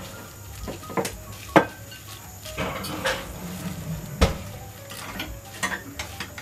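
Kitchen utensils knocking and scraping against a dish as food is gently tossed in a sauce: a few sharp clinks, the loudest about four seconds in, between softer scraping.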